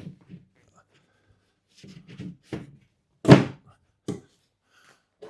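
Wooden base board being handled and set down onto the bed frame: a few light knocks, then one loud thunk about three seconds in and a smaller knock just after.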